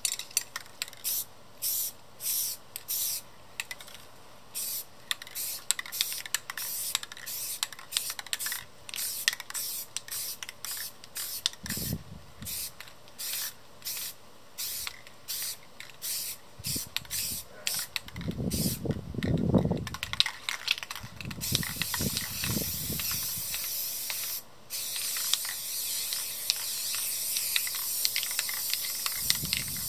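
Rust-Oleum American Accents aerosol spray paint can hissing in many quick short bursts, about two a second, then held in long continuous sprays for the last third, with one brief break. Some low rumbling comes in around the middle.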